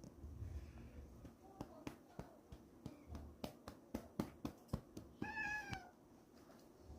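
A domestic cat gives one short meow, falling slightly in pitch, about five seconds in. Before it comes a scattered series of sharp clicks.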